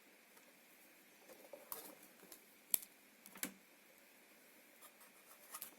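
Faint handling of an electronic circuit board and its connectors, with a little rustling and then two short sharp clicks about two and three and a half seconds in.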